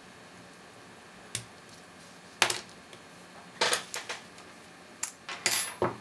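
Brass padlock and steel lock picks being handled: a string of sharp metallic clicks and clinks at uneven intervals, starting a little over a second in, the loudest about two and a half seconds in.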